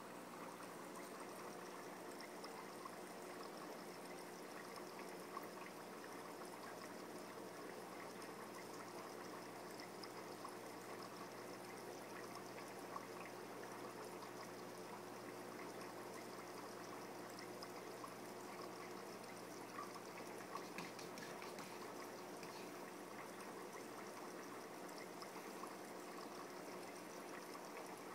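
Faint, steady trickling water from a fish-tank screen saver playing through a TV's speakers, with a few faint clicks.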